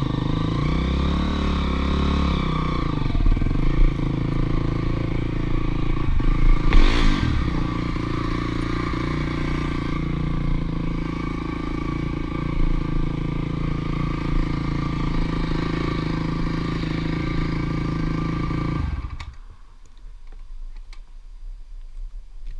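Honda dirt bike engine running at low speed, with a brief rev rising and falling about seven seconds in. The engine shuts off a few seconds before the end, leaving only faint ticking.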